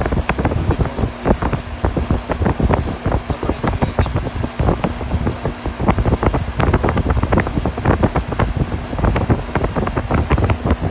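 Air-conditioning unit running with a steady hum, overlaid by a dense, irregular crackle of sharp knocks several times a second.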